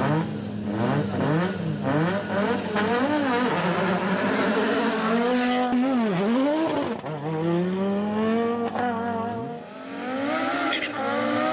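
Audi quattro Group B rally car's turbocharged five-cylinder engine, revving hard and repeatedly climbing and dropping in pitch through gear changes. There is a sharp dip about six seconds in and a lift-off near nine and a half seconds before the revs build again.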